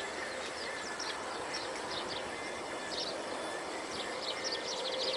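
Outdoor ambience: a steady hiss with repeated bursts of rapid, high-pitched chirping.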